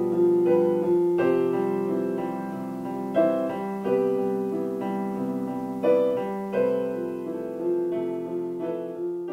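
Solo piano playing slow, sustained chords, with a new chord struck every second or so.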